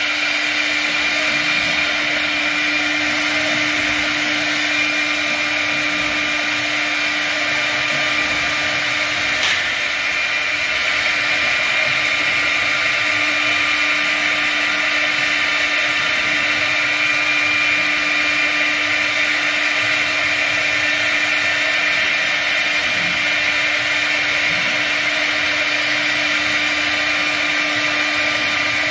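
Plastics-processing machine running steadily: a constant motor whine with a steady hum beneath it, and one faint tick about nine and a half seconds in.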